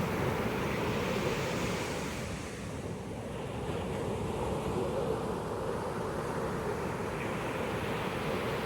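Pacific Ocean surf washing onto a beach as a steady rush. It eases about a third of the way in and builds again.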